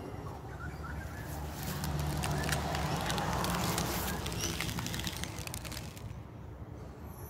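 Outdoor background noise with a stretch of rustling and crackling in the middle, as tree leaves brush close against the phone.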